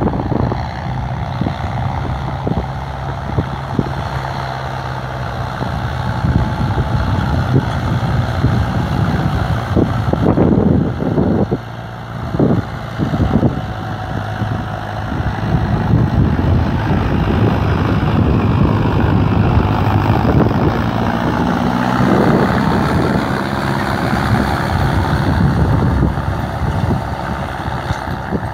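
Mahindra Arjun Novo tractor's diesel engine running steadily while pulling a harrow, with a few clattering knocks about ten to thirteen seconds in.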